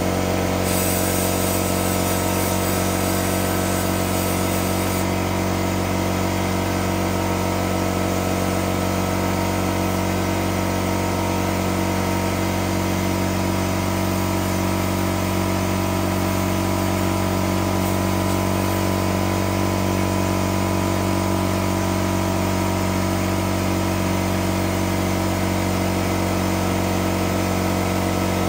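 Air compressor running steadily with an even motor hum. A higher hiss rides over it from about a second in until about five seconds in.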